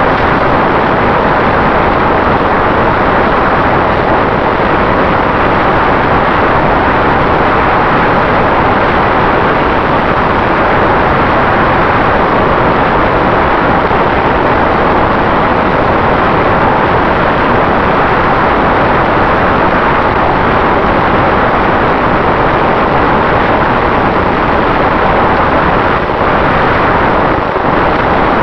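Steady rush of airflow and propeller noise from a small propeller plane in flight, heard from a camera on its nose, with a faint steady whine underneath.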